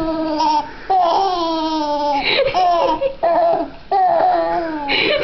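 Baby laughing and squealing while being tickled on the chest: a string of about five drawn-out, falling squeals with short breaks for breath.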